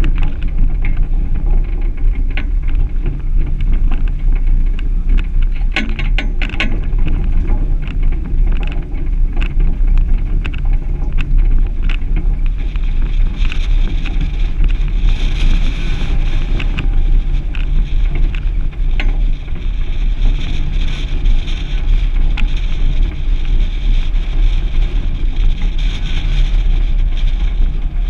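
Suzuki Grand Vitara driving along a rutted dirt-and-grass track, heard from a camera mounted outside on the vehicle: a steady low rumble with wind buffeting the microphone. Scattered clicks and knocks throughout, with a quick cluster of them about six seconds in.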